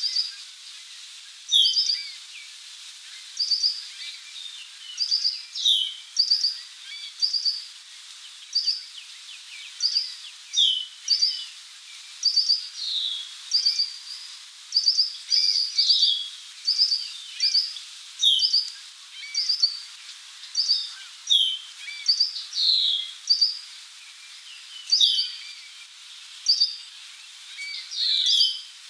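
Songbirds calling: short, high chip notes, often in quick pairs, repeated every second or so, with louder downward-slurred notes every few seconds, over a steady background hiss.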